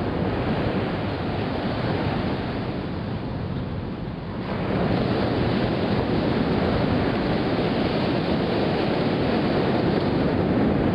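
Ocean surf washing onto a beach, with wind buffeting the microphone. The sound gets suddenly louder about four seconds in and stays steady after that.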